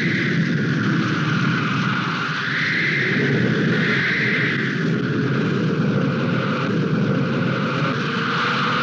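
Storm sound effect: wind blowing in gusts, a whistling tone rising and falling every second or so over a steady low rumble and hiss.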